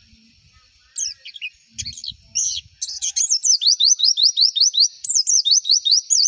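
White-eye (pleci) singing: a few sharp high chirps about a second in, then from about three seconds a fast run of high down-slurred notes, about five a second.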